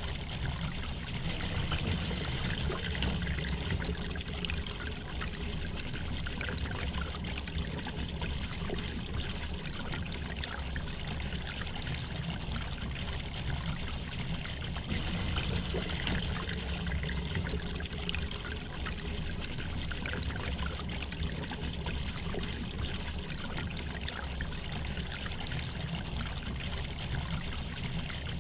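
River water flowing gently over stones, a steady trickling and babbling.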